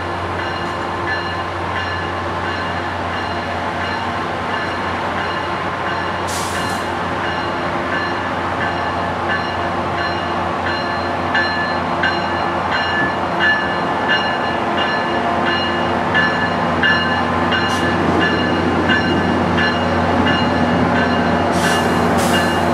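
Brookville BL20GHM diesel locomotive approaching slowly at the head of a short train, its engine running steadily and growing louder as it nears. Short metallic ticks repeat throughout, and a few brief hisses come about six seconds in and again near the end.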